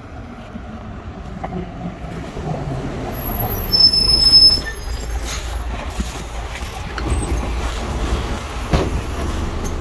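A city bus pulls in to the stop. Its engine rumble grows and its brakes squeal in short high-pitched tones about three to five seconds in, then the engine runs on steadily.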